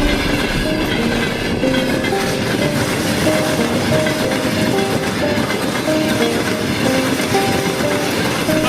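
Train running through a station at speed behind a VL10 electric locomotive: a steady rolling rumble with wheels clattering over the rail joints.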